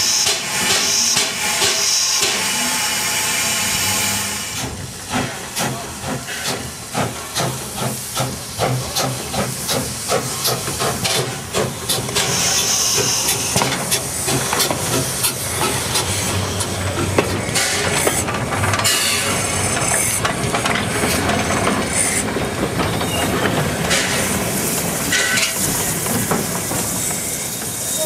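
Two steam tram locomotives working a train past: hissing steam from near the cylinders, then chuffing exhaust beats about twice a second as they pull away. Sharp knocks and clanks from the running gear and carriages come through throughout.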